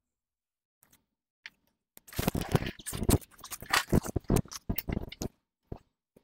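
Zip ties rattling and clattering in a clear jar as a hand rummages through them, for about three seconds from about two seconds in, with a few faint clicks before and after.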